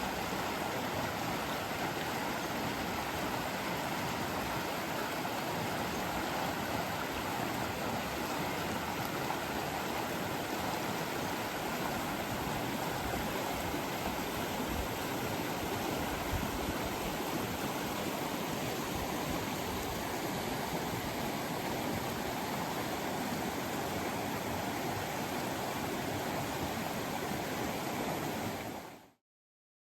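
Stream water rushing and gurgling in a steady flow, then fading out quickly near the end.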